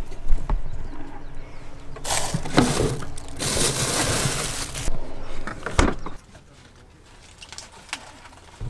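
Food being handled at a kitchen counter: plastic bags crinkling in two long stretches, with scattered clicks and knocks and one sharp knock near the end.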